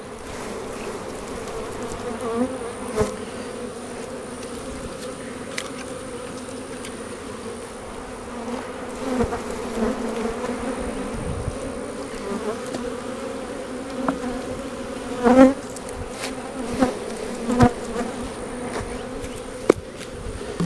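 Honeybees buzzing in a steady hum around an opened hive, swelling louder briefly a few times, with several short knocks as frames are handled and bees shaken off.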